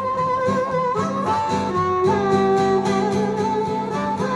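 Live acoustic blues: acoustic guitar strumming a steady rhythm under long held melody notes.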